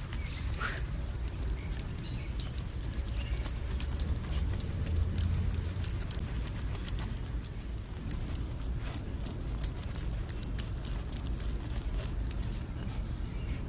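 Small dog digging in garden soil with its front paws: an irregular run of quick scratching and scraping of claws in dirt, busiest toward the end, over a low steady rumble.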